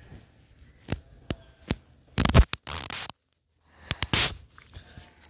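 Handling noises: a few sharp clicks, then loud scraping and scratching a little over two seconds in and again near four seconds, with a brief total cutout in between.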